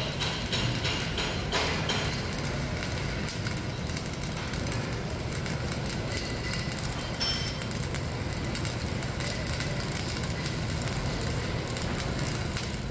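Stick (shielded metal arc) welding with a 3.2 mm E7016 electrode: the arc burns with a steady, even crackle of fine spits and pops as the rod melts into the joint.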